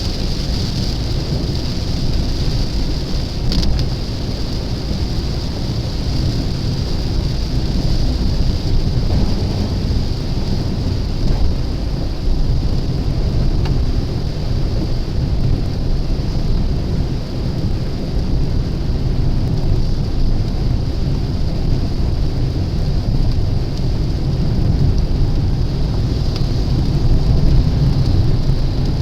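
Steady rain falling on a car, heard from inside the cabin over a continuous deep rumble from the moving car.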